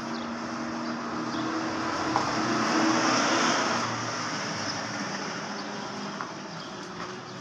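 A road vehicle passing by: a rushing noise that swells to a peak about three seconds in and then fades, with a low steady hum under the first half and a few faint clicks.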